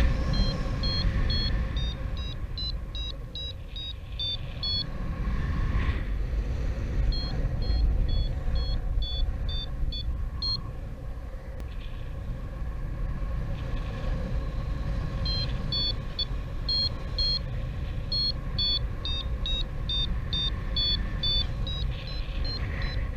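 Strong wind buffeting the microphone, a heavy low rumble that swells and eases. Over it, runs of short high chirping notes repeat quickly, about four to five a second, in several groups that start and stop.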